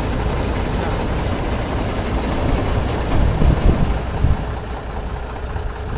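Combine harvester running steadily, a continuous engine and machinery sound with a high hiss, and a few low thuds a little past halfway.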